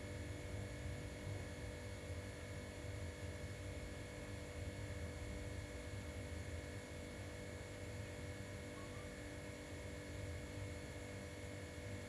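A steady low hum with several faint, unchanging higher tones above it.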